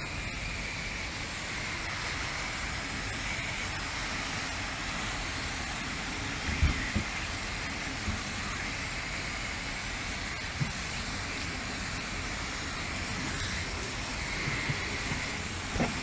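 Garden hose spray nozzle running steadily, a fine spray of water hissing onto raw fish fillets on a tabletop. A few short knocks come as the wet fillets are handled.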